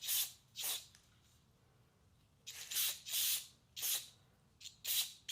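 Short hissing spray blasts, about eight in quick groups, cleaning out the passages of a small-engine carburetor during its rebuild.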